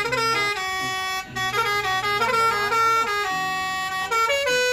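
Bus 'telolet' Basuri horn playing a melody: several horn tones sounding together as a chord, stepping from note to note with a brief break about a second in.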